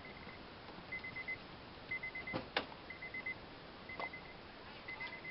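Faint electronic beeping, a short quick run of beeps repeating about once a second, with a few sharp clicks, the strongest two about halfway through.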